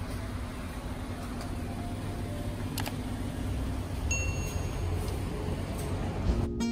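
Steady street ambience with a low rumble, and about four seconds in a single short electronic chime from a convenience store's entrance door sensor as someone walks in.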